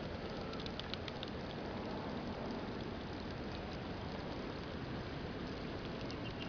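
Steady splashing hiss of a fountain's water falling into a pond, with a few faint high ticks about a second in.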